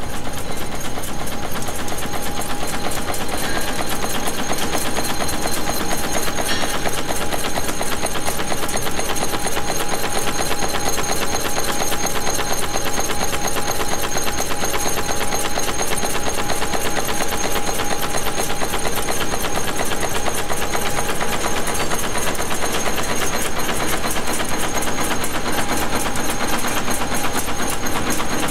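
Manek N-2 wire nail making machine running steadily: a fast, even mechanical clatter of its heading and cutting strokes, with a steady hum underneath.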